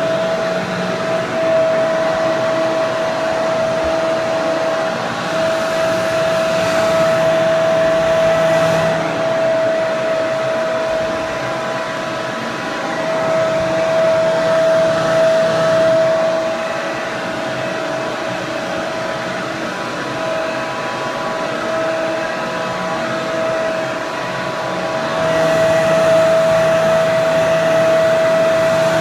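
Hair dryer running steadily: an even rush of air with a high whine held at one pitch, its loudness swelling and easing slightly every several seconds.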